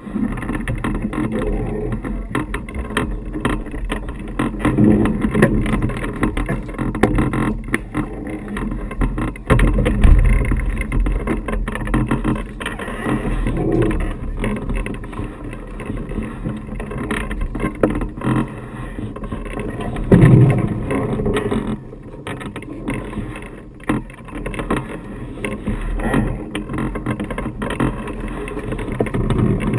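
Wind rumbling on the microphone, rising and falling unevenly, with a few stronger gusts.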